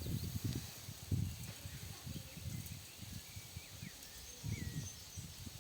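Quiet outdoor ambience: low, irregular rumbling on the microphone with a few faint bird chirps around the middle.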